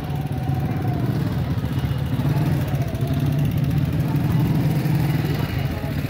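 A motor vehicle engine idling steadily close by, with faint voices in the background.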